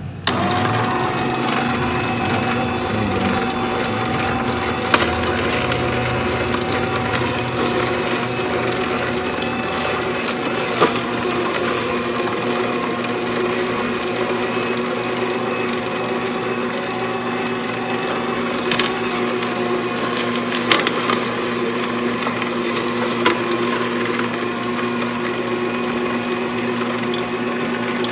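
Slow juicer switched on just after the start and running steadily with a motor hum, its auger crushing apple pieces, with a few sharp cracks spread through.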